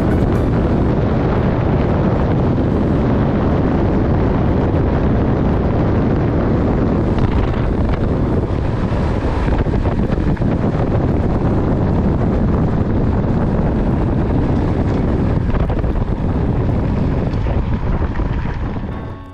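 Steady wind noise rushing over an action camera's microphone while riding a mountain bike at speed.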